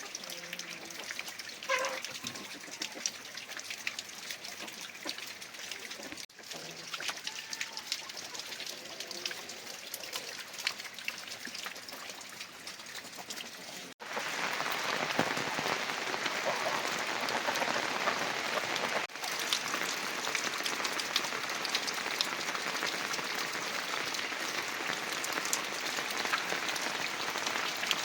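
Heavy rain falling, with many separate drops striking close by. After a sudden cut about halfway through, the rain becomes louder and denser.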